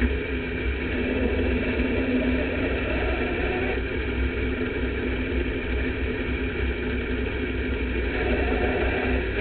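Sport mod race car's V8 engine running steadily at low revs, heard from inside the car's cockpit as a constant rumble.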